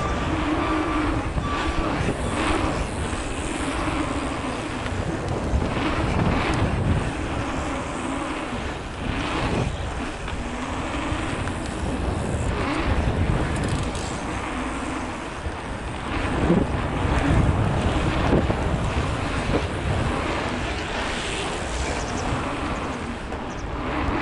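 Wind buffeting the microphone of a camera riding a mountain bike on an asphalt pumptrack, over a low rumble of tyres rolling on the asphalt that swells and fades with the rollers and berms.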